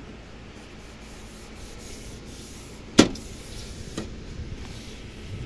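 Metal gutter guard panel being slid and rubbed into place on the gutter: steady scraping, with a sharp knock about three seconds in and a lighter one a second later.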